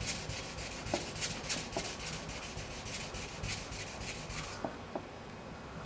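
Hand sanding with 600-grit paper on a small sanding block, short back-and-forth strokes rubbing over car paint with light pressure to knock down a paint run. About three strokes a second, stopping shortly before the end.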